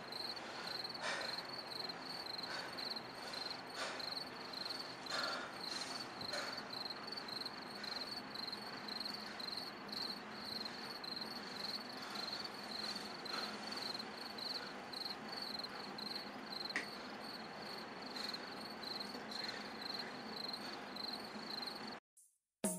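A cricket chirping steadily at a high pitch, a few chirps a second, over a faint hiss, cutting off suddenly near the end.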